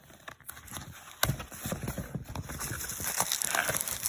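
A shoebox and its packaging being handled: a sharp knock about a second in, then a run of irregular taps and rustling.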